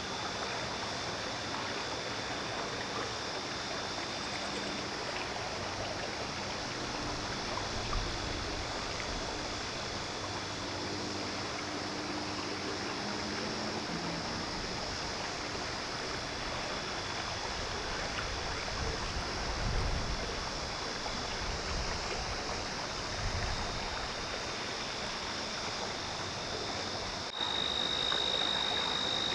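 Outdoor dusk ambience: a steady, even rushing hiss with a thin high insect-like tone held throughout and frogs calling. A few low bumps of wind on the microphone come about two-thirds through, and near the end the sound cuts to a louder, clearer high tone.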